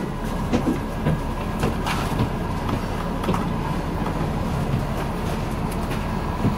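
Bus engine running, heard from inside the cabin of a double-decker, with a steady low hum and frequent light rattles and knocks from the bus's fittings.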